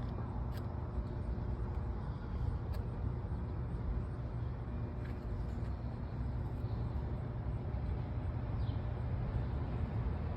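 Steady low rumble of outdoor background noise, even in level throughout, with a few faint short high chirps.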